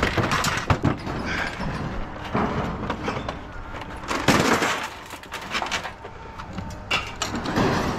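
Scrap metal pieces being handled and shifted: a run of clanks, knocks and scrapes, the loudest about four seconds in.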